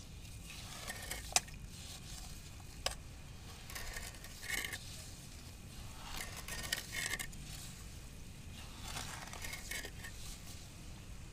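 Cooking utensils scraping and clinking at intervals, with two sharp clicks in the first three seconds and several short scrapes after that.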